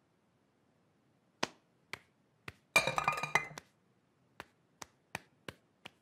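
Metal saucepans clinking against each other and the kitchen counter: a few sharp separate clinks, then a brief ringing clatter about three seconds in, then a run of lighter clinks about every half second.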